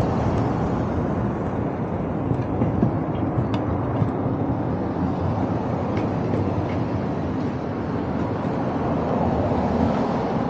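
Steady low noise of a bicycle being ridden along a road, the mix of moving air and tyres on pavement, with a few faint clicks.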